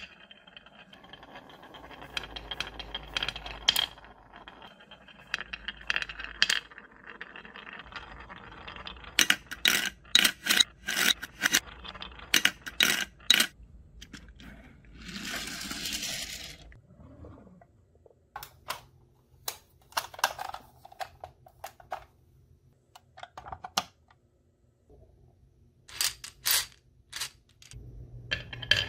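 Glass marbles rolling down grooved wooden slope tracks, a steady rolling rumble at first, then a quick run of sharp clicks as marbles knock against each other and the wood. Later come scattered clacks as marbles drop and settle, one into a plastic toy dump truck's bed.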